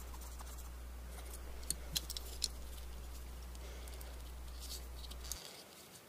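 Cotton swab scrubbing the contacts on a power window switch's circuit board with contact cleaner: faint scratchy rubbing with a few light ticks about two seconds in, over a steady low hum.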